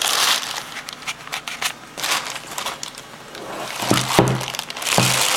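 Rustling and crinkling from something being handled, with scattered clicks, and a few short low hums near the end.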